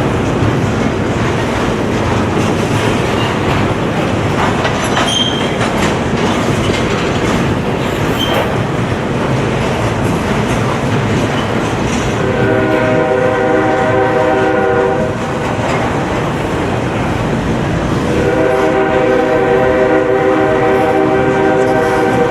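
Norfolk Southern freight train running by, its wheels clattering on the rails. The locomotive's air horn sounds a chord about twelve seconds in for a few seconds, then again about eighteen seconds in, still held at the end.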